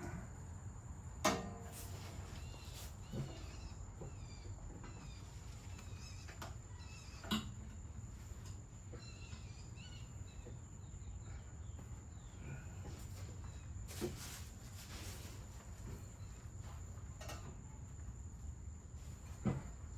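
Low steady background rumble with faint bird chirps and a thin high insect-like whine, broken by a few sharp knocks: one about a second in, then roughly every six seconds.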